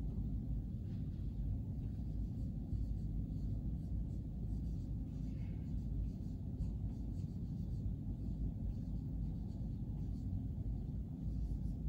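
Dry-erase marker strokes on a whiteboard, faint short scratches while a line of text is written. A steady low rumble runs underneath and is the loudest sound.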